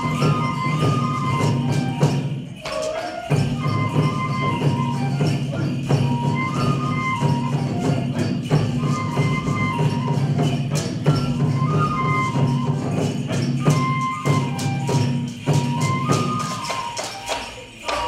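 Live koma odori (horse dance) folk music: a high melody repeating in short phrases every two to three seconds, over steady drumming and a busy jingling percussion rhythm.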